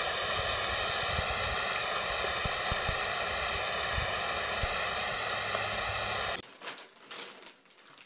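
Garden hose spraying a fine mist of water: a steady, loud hiss with faint low knocks under it, cutting off suddenly about six seconds in.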